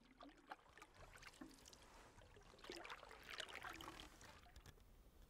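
Faint water sounds of a canoe paddle dipping and dripping: soft, irregular splashes and trickles, with a small cluster of them about three seconds in.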